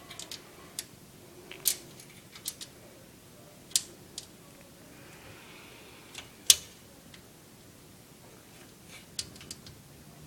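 Scattered, irregular sharp clicks and taps of screws and a screwdriver against a computer case's metal panels while a power supply is screwed in; the loudest knock comes about six and a half seconds in.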